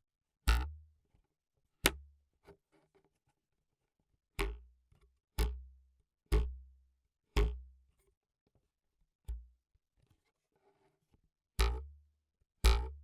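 Foley props struck one at a time, about nine sharp hits at uneven spacing, each with a deep thud and a short ringing decay. The hits are picked up close by a contact microphone.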